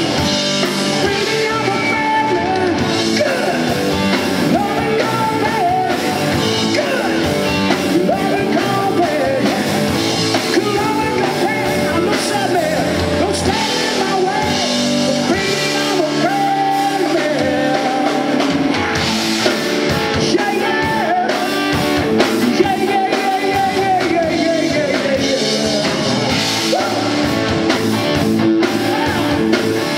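Live rock band playing: a male singer over electric guitars, bass and drum kit, all amplified through a PA.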